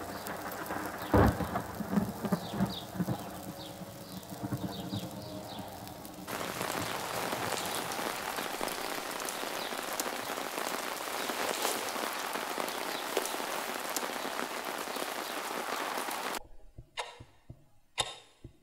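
Light clattering with a single thump about a second in, then steady heavy rain that comes in suddenly about six seconds in. Near the end the rain cuts off abruptly, giving way to a clock ticking.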